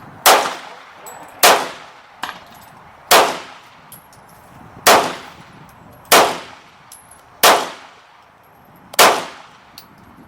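Seven gunshots fired one at a time, about one every second and a half, each trailing off in a short echo.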